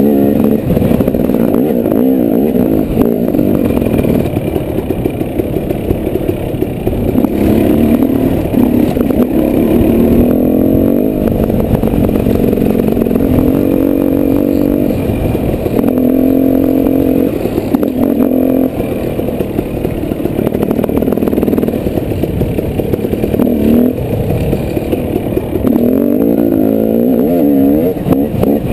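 Dirt bike engine running under load, its pitch rising and falling again and again as the throttle is opened and closed, with frequent short knocks and clicks throughout.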